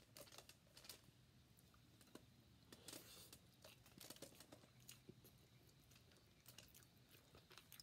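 Faint close-up eating sounds: a person chewing stewed conch and rice, with scattered wet mouth clicks and a brief rustle about three seconds in.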